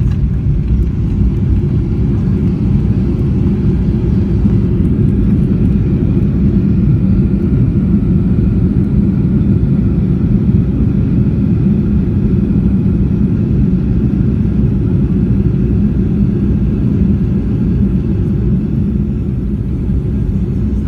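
Boeing 737 heard from inside the cabin: a loud, steady low rumble of the engines and airframe, with a faint steady engine whine above it.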